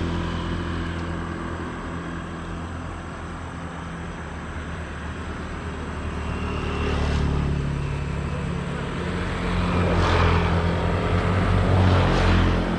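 Bicycle tyres rolling on the road, giving a steady low humming drone with a rush of noise over it. The rush swells several times in the second half.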